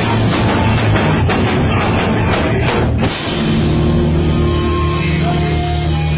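A rock band playing live and loud: distorted electric guitars, bass and a full drum kit, with a vocalist screaming into the microphone. About three seconds in the drums stop and the guitars and bass ring on in a steady, sustained chord.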